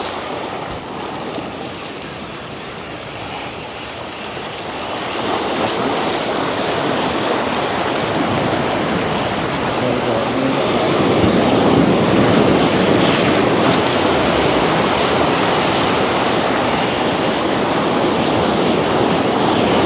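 Ocean surf washing over shoreline rocks: a steady rush of breaking water that swells louder about five seconds in.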